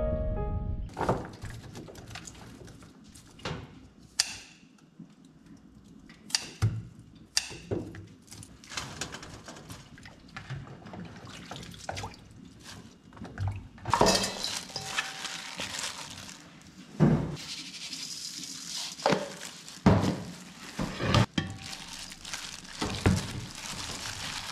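Kitchen handling of wild chives in stainless steel bowls at a sink: scattered knocks and clinks of metal bowls and a colander, turning about halfway through into a denser stretch of rustling noise with frequent knocks. A piano tune fades out at the very start.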